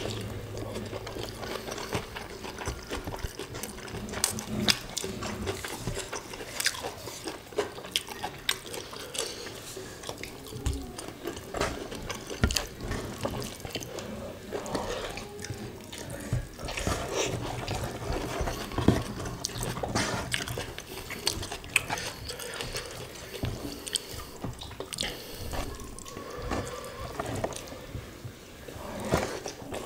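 Close-miked wet eating sounds from two people eating rice and prawns by hand: irregular lip smacks, squelchy chewing and fingers working through moist rice.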